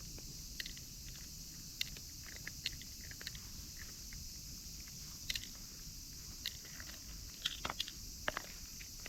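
A cat eating dry food, with irregular short crunches as it chews the kibble, some clustered close together near the end.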